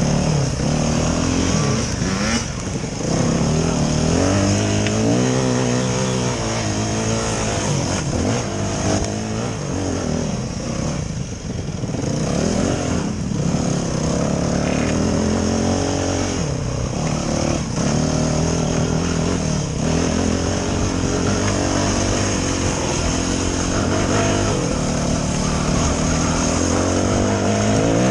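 Yamaha dirt bike engine, heard from the rider's helmet, revving hard with its pitch climbing and dropping over and over as the throttle is opened and shut along the trail.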